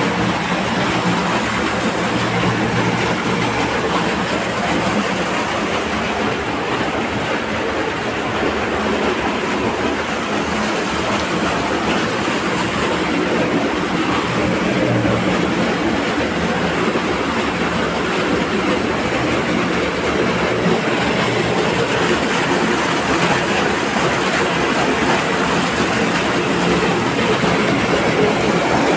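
Cave waterfall pouring down a rock channel into a pool: a loud, steady rush of falling water.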